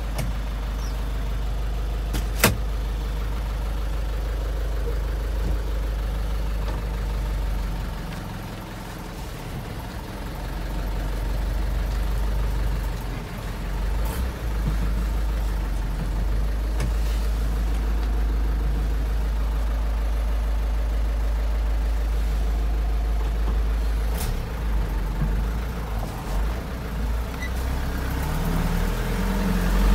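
Old Mitsubishi Canter's diesel engine idling steadily, heard from inside the cab, running normally with no engine faults. One sharp click about two seconds in.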